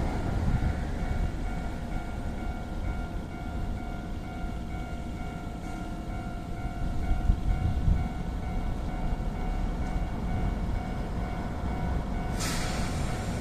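Nankai 2200 series electric train running slowly toward the station: a steady low rumble with a constant tone above it. A sudden hiss starts near the end.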